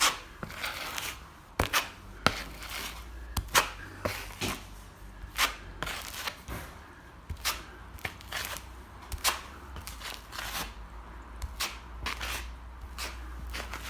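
Plastering trowel scraping and tapping over wet cornice cement in a ceiling crack, levelling the fill in short, irregular strokes about one or two a second, over a low steady hum.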